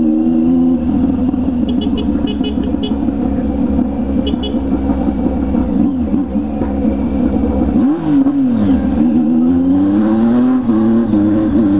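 Motorcycle with a loud aftermarket exhaust running under way. The engine note holds steady, then about eight seconds in the revs swing up and fall back, and climb again near the end.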